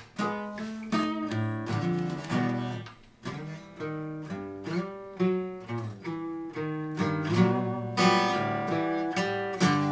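Acoustic guitar played by hand: a run of picked notes and chords that ring out, with a brief gap about three seconds in and a full chord struck near the end.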